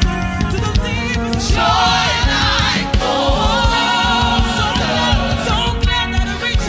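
Gospel worship song: voices singing together over a band with a steady drum beat.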